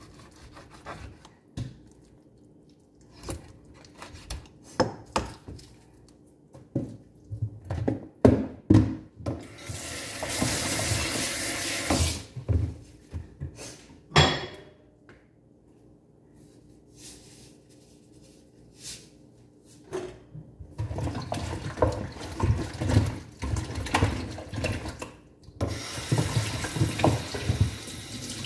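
A kitchen knife chopping raw chicken on a plastic cutting board, a series of irregular knocks. Then a kitchen tap runs into the sink in several spells, with handling and rinsing clatter under the water.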